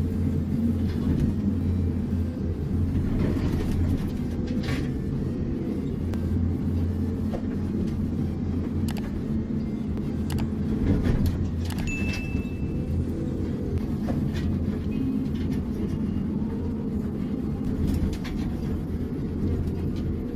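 A heavy engine running steadily with a low rumble, with a few scattered knocks.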